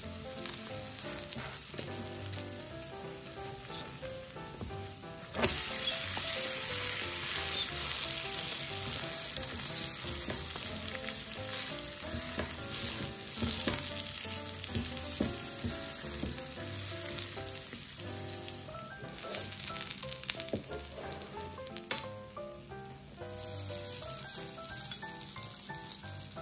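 An okonomiyaki of shredded cabbage batter frying on a hot griddle, a steady sizzle that suddenly gets much louder about five seconds in as the pancake is flipped onto its raw side. The sizzle eases briefly near the end, and soft background music plays under it.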